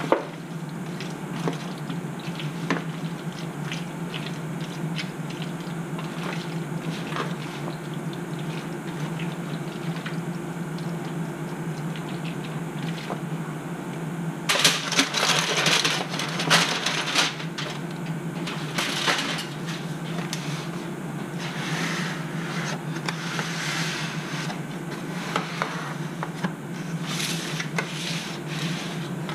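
A spatula stirring and scraping macaroni and cheese in a disposable aluminium foil pan, over a steady low hum. About halfway through come several seconds of loud crinkling and scraping from the foil pans, then more intermittent scraping near the end.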